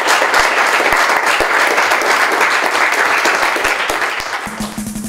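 Audience applauding, a dense patter of many hands, fading out near the end as music comes in.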